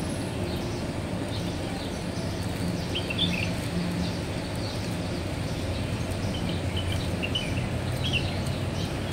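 Steady city traffic hum with a few short, high bird chirps, about three seconds in and again near the end.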